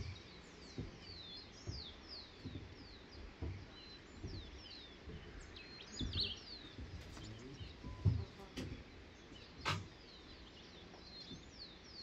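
Birds chirping: a steady run of short, high notes, each sliding downward. Soft low thumps come about once a second, with a sharp click near the end.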